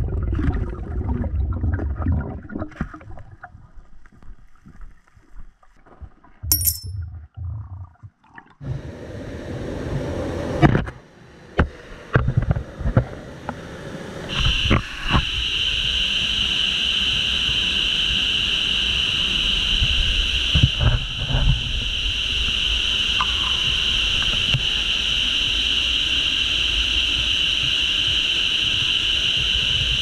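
Muffled underwater sound at first: uneven low rumbling with a few sharp knocks. About halfway through it gives way to the steady rush of a waterfall pouring close by, which is the loudest part.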